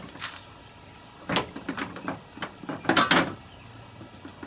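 Clicks and knocks of small hose reel parts being handled on a workbench: one knock about a second and a half in, and a louder cluster of knocks about three seconds in.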